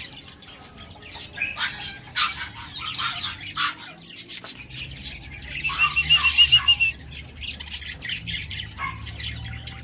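Budgerigars and other small caged birds chirping and squawking in quick, overlapping calls. A fast trill of about ten high notes comes about six seconds in.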